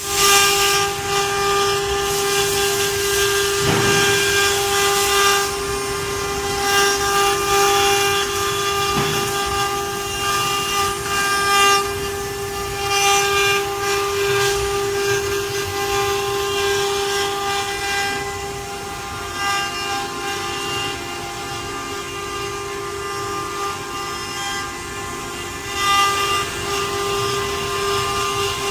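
CNC wood router spindle running at high speed with a steady high whine, with rough bursts of noise from the bit cutting into wood; the whine dips slightly in pitch for a few seconds past the middle.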